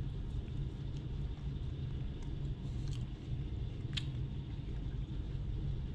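A person chewing soft bread, with a few small clicks over a steady low background hum.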